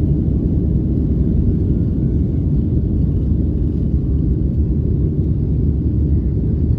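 Boeing 737-700's CFM56-7B jet engines at takeoff thrust heard inside the passenger cabin: a loud, steady low rumble as the airliner rotates and lifts off the runway.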